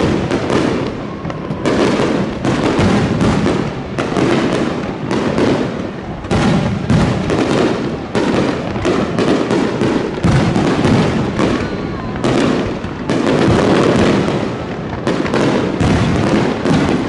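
Aerial fireworks bursting in a dense, near-continuous volley, with booms and crackling overlapping one another.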